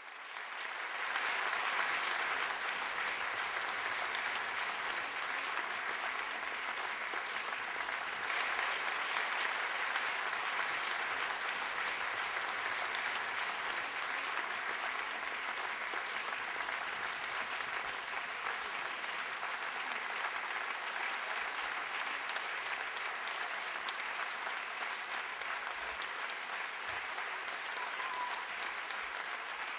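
Theatre audience applauding, swelling up over the first second or two and then holding steady.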